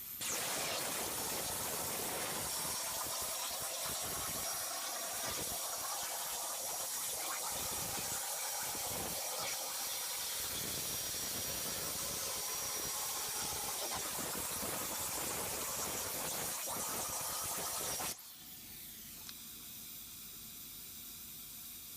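Hypertherm plasma torch cutting at 300 amps: a loud, steady hiss with a thin high whine, starting abruptly and cutting off suddenly about 18 seconds in, after which a quieter hiss carries on.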